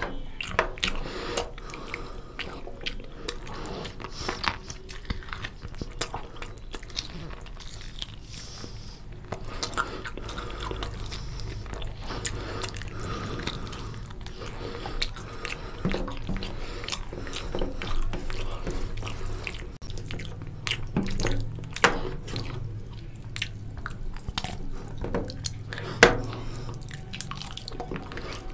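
A person chewing and biting into mutton paya (goat trotters) curry with rice, close to the microphone. Irregular sharp mouth clicks run throughout, the loudest one near the end.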